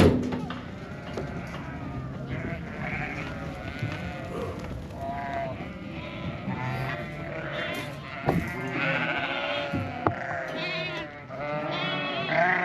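A flock of ewes and lambs bleating, many calls overlapping, over a steady barn background, with a couple of sharp knocks partway through. The flock is being sorted at weaning.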